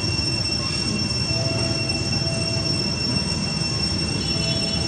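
Steady high-pitched insect drone holding two constant tones, over a low, even rumbling background noise.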